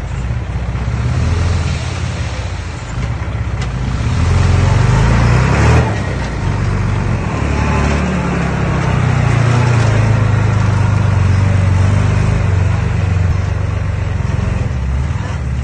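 Earthmoving machine's diesel engine running under changing load. It gets louder about four seconds in and again about halfway through.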